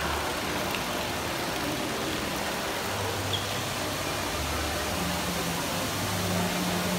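Steady rushing of an indoor ornamental fountain's running water.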